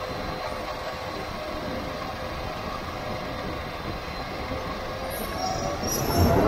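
Traxxas Stampede 4x4 RC truck driving on asphalt, heard from a camera riding on it: a steady rolling rumble of tyres and drivetrain with a faint motor whine, growing louder near the end.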